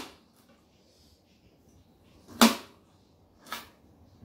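Kitchen knife striking a plate while peaches are sliced on it: a sharp clack about two and a half seconds in and a lighter one a second later.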